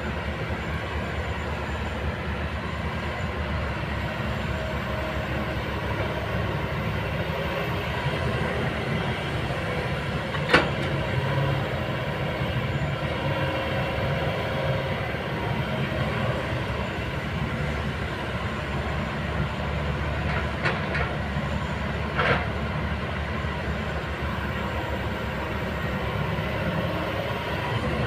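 Kobelco excavator's diesel engine running steadily under work, with a few sharp knocks from the machine, the loudest about a third of the way in.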